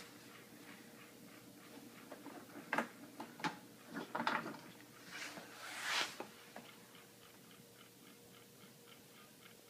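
A few sharp clicks and knocks of small household objects being handled, with short rustling bursts, then faint, even ticking of about four ticks a second.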